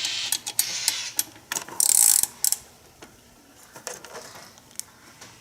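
Hand ratchet clicking in short bursts as it is worked back and forth, checking the mounting bolts of a new EGR valve for tightness. The clicking falls away about halfway through, leaving a few scattered clicks.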